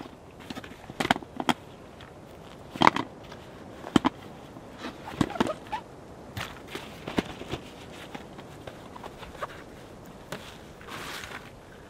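Camping gear being handled: scattered knocks and clicks of poles and frame pieces, with a short stretch of rustling near the end.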